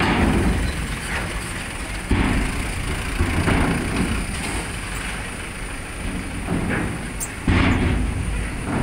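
Vehicles driving slowly off a ferry down its ribbed steel loading ramp: a low engine rumble, with sudden heavy thuds about two seconds in and again near the end as wheels come onto the ramp's steel plates.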